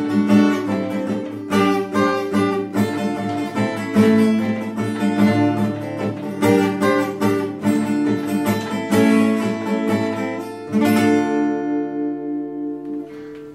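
Solo acoustic guitar playing the song's instrumental close, a run of strummed chords. Near the end a last chord is left to ring and fade out.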